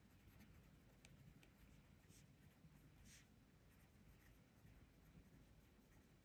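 Very faint scratching of a pen writing on paper, a few short strokes.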